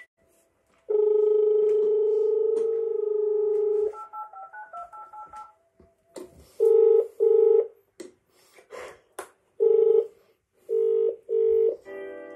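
Panasonic KX-TGM422 cordless phone handset: a steady dial tone for about three seconds, then a quick run of keypad beeps as a number is dialled, then ringback tone in short double rings. Near the end the call is answered by a recorded greeting with music.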